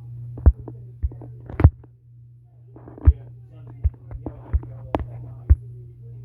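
Irregular sharp knocks and thumps, about a dozen, over a steady low hum, with faint voices in between.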